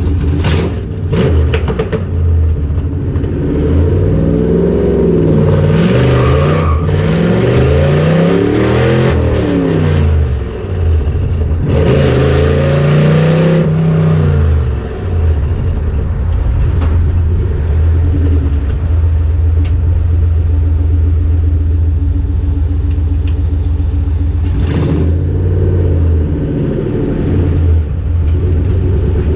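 Car engine idling with a steady low drone and revved up and back down several times: a run of rev blips a few seconds in, a longer rev about halfway through the first half, and a short burst near the end.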